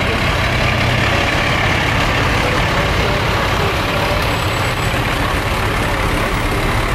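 Heavy fire rescue truck's diesel engine running with a steady low drone as the truck rolls slowly past at close range.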